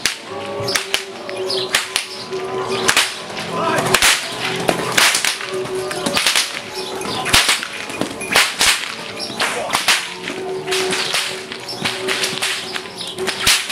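Hungarian herdsmen's whips (karikás ostor) cracking over and over, sharp snaps at an uneven pace, sometimes several in quick succession.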